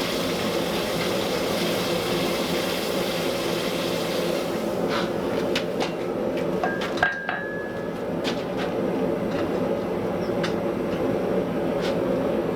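Steady mechanical drone with a hiss on top that stops about four and a half seconds in. Then comes a run of scattered light metallic taps and clinks, one of them ringing briefly.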